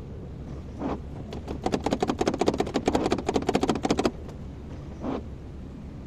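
A steady low engine hum. For about two and a half seconds in the middle it is overlaid by a loud, rapid clatter of about a dozen clicks a second, with single short knocks before and after.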